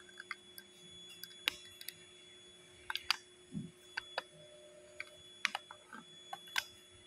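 Irregular sharp clicks and taps, about ten in all, with a soft low thump about three and a half seconds in, over a faint steady high whine and low hum.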